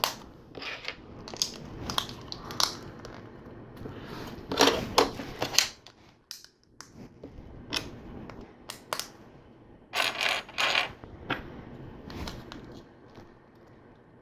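LEGO bricks and slope pieces being handled and pressed together by hand: irregular small plastic clicks and clatters, busiest about five seconds in and again around ten seconds in.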